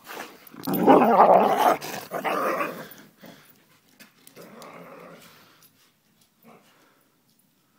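Two dogs growling at each other in rough play, close to the microphone, loud for the first few seconds and then fading away as they run off.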